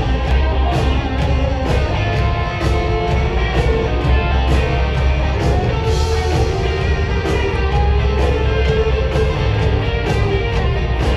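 Live rock band playing loud through a concert PA: an electric guitar lead over a steady drum beat and bass, with no vocals.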